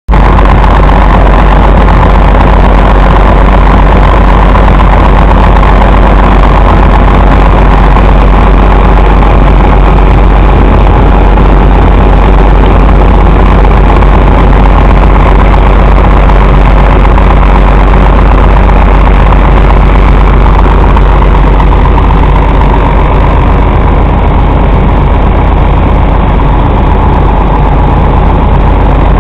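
Heavy truck diesel engine idling steadily and loudly.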